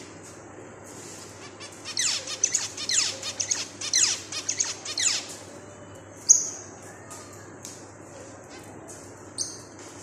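Zebra finches calling in a cage: a quick run of downward-sweeping chirps for about three seconds, then two single sharp high calls, the first of them the loudest.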